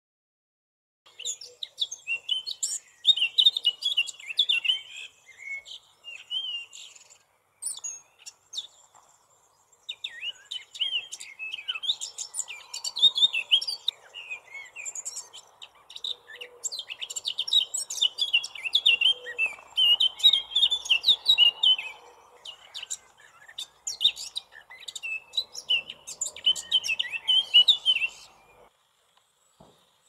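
Eurasian blackcap singing: several phrases of fast, varied warbling with short pauses between them, over a faint steady background hiss.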